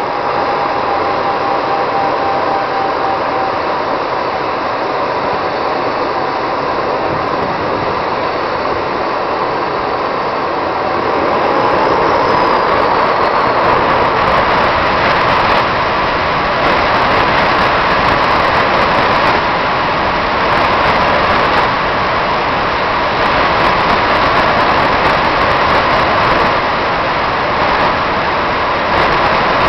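Four model jet turbine engines running together, a loud steady rush with a thin whine over it. About eleven seconds in they spool up: the whine rises in pitch and the sound gets louder.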